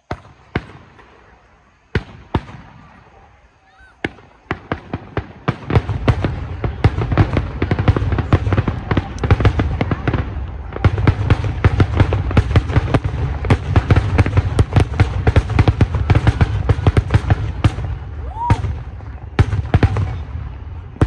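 Aerial fireworks: a few single bangs a second or two apart, then from about five seconds in a dense barrage of rapid bangs over a continuous low rumble, thinning out near the end.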